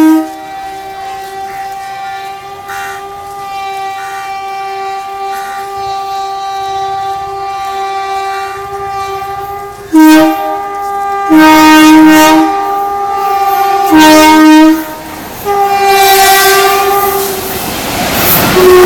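A WAP-1 electric locomotive's horn sounding furiously: a steady held tone for about ten seconds, then a run of much louder short blasts. Over the last few seconds the rushing rattle of the passing train builds underneath.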